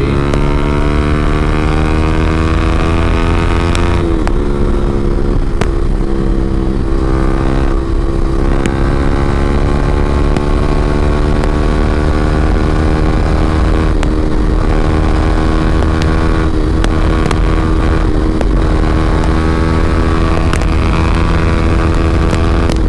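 Yamaha R15M's 155 cc single-cylinder engine through an SC Project full-system exhaust, running hard under acceleration at highway speed. The exhaust note climbs steadily in pitch, with a gear change about four seconds in, then keeps rising.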